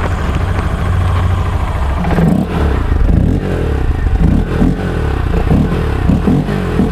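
Honda NXR 160 Bros single-cylinder engine running with its air filter removed, so it sounds louder and rougher than stock. It turns over steadily at first, then from about two seconds in it is revved in a series of short throttle blips.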